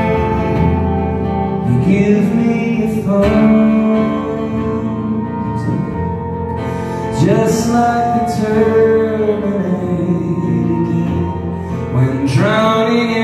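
Live band playing: a male singer's sung phrases over acoustic guitar, electric bass and drums. The singing comes in about two seconds in, again about seven seconds in, and near the end.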